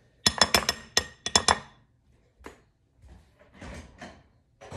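Spoon clinking against a glass mixing bowl: about half a dozen quick, ringing taps in the first second and a half, then a few faint knocks.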